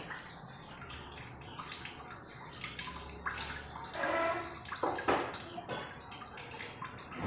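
Water splashing and trickling, with irregular light clatter of kitchenware and two louder knocks about four and five seconds in.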